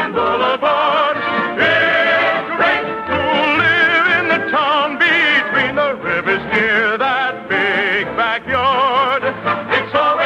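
Studio orchestra playing a bright, full musical passage with a strongly wavering, vibrato melody line on top.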